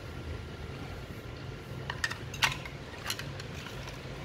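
Light plastic clicks and knocks as the empty battery shell of a 7.2 V Ryobi cordless drill is handled and pushed into the drill's handle, a few sharp clicks from about halfway through. A steady low hum runs underneath.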